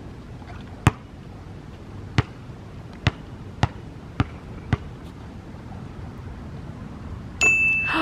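A basketball bouncing on a hard outdoor court: six sharp bounces, the first about a second in, the last four a steady dribble about two a second. Near the end a steady high tone with hiss comes in.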